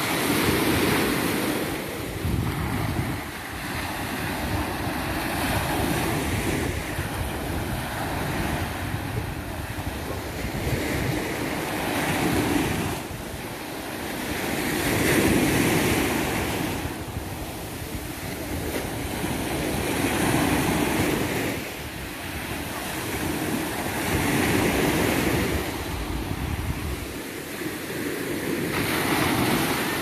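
Small sea waves breaking and washing up a sandy beach, the surf swelling and fading every four to five seconds. Wind rumbles on the microphone and drops away near the end.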